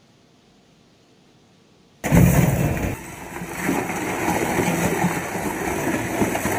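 Faint hiss, then about two seconds in tire-recycling machinery starts loud and abruptly: the conveyor and shredder line feeding used tires into the hopper. It runs on steadily, with a brief dip about a second after it starts.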